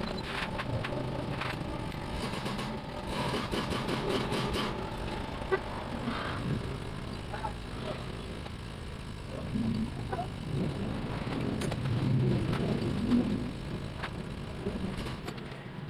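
Light clicks and clinks of small metal engine parts and hand tools being handled, most frequent in the first few seconds, over a steady background of motor-vehicle traffic.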